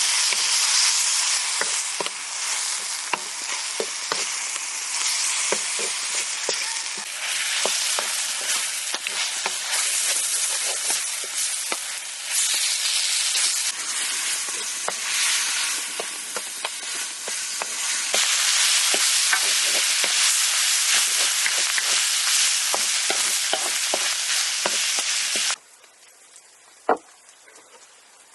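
Food sizzling and crackling in hot fat, a dense hiss dotted with small pops, that stops abruptly near the end; a single click follows.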